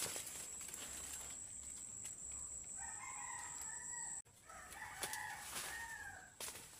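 A rooster crowing twice, two drawn-out calls, the second falling in pitch at its end. A thin steady high whine runs underneath and stops about four seconds in.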